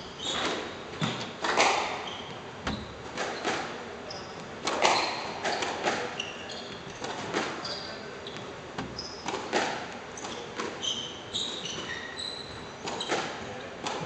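Squash rally: the ball cracking off rackets and the walls at irregular intervals, with shoes squeaking briefly and often on the wooden court floor.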